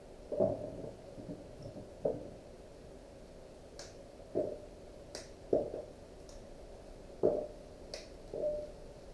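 Fresh asparagus spears snapped by hand, each bent until its tough woody base breaks off: a string of short, crisp snaps mixed with light knocks, about eight in all.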